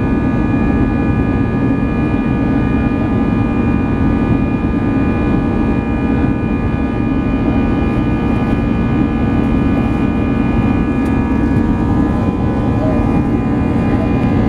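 Airbus A319-100 cabin noise during the climb after takeoff: the steady drone of the jet engines and rushing airflow, heard inside the cabin, with several steady whining tones over it.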